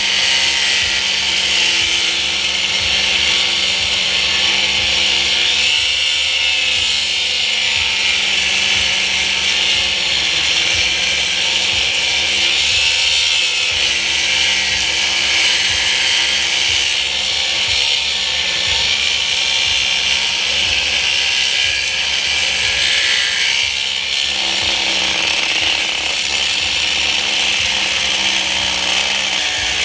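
Battery-powered cutting tool running under load, cutting through a cast-aluminium motor mount. A steady, loud cutting noise that keeps going without a break.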